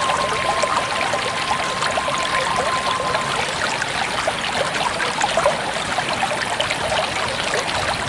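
River water flowing and trickling: a steady rushing babble full of small splashes.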